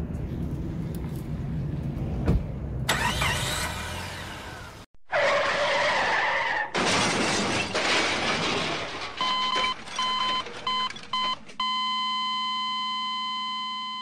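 Car driving, then a tyre screech and a loud crash. After that come a few quick electronic beeps that merge into one long steady tone, which begins to fade near the end.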